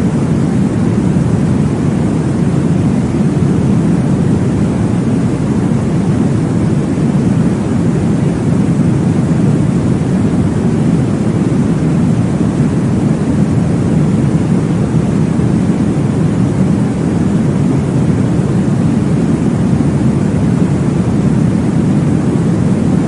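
Steady, deep whooshing noise from a baby-sleep noise track, weighted toward the low end rather than the hiss of true white noise. It is meant to imitate the blood-flow whoosh heard in the womb, and no heartbeat stands out.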